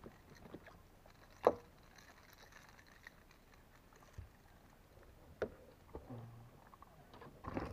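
Quiet handling noises aboard a plastic kayak: a single sharp knock about a second and a half in, and a softer knock a few seconds later.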